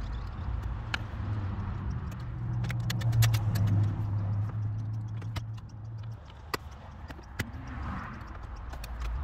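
Screwdriver work on a Honda Civic's plastic lower dash trim: scattered small clicks and taps of the tool and screws against the plastic panel, with two sharper knocks near the end. A steady low hum runs underneath from about a second in and cuts off suddenly a little after the middle.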